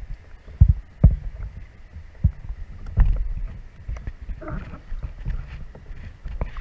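Water sloshing and slapping against a capsized, swamped canoe and its camera housing at the waterline, with irregular low knocks and thumps as the canoe is pushed through the river. The strongest thumps come about half a second in, at one second and at three seconds.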